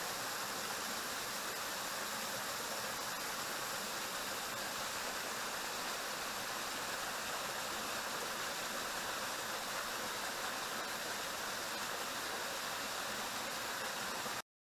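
Waterfall, water rushing and splashing in a steady, even roar that cuts off suddenly near the end.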